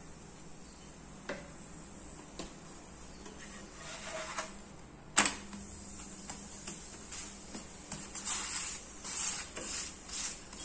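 Utensils on a nonstick tawa while a paratha cooks: a few light taps, a sharp knock about five seconds in as the paratha is turned over, then a run of short scraping strokes as a flat spatula presses the paratha against the pan.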